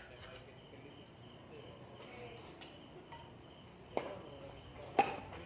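Crickets chirping steadily, with two sharp racket strikes on a badminton shuttlecock about a second apart near the end; the second strike is the louder.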